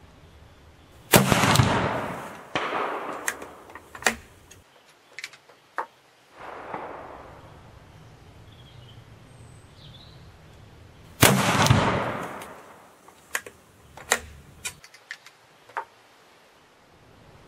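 Two shots from a Wänzl 1854/67 breech-loading rifle in 14x33R, about ten seconds apart, each with a long echoing tail. After each shot come several sharp metallic clicks as the breech is opened and the rifle reloaded.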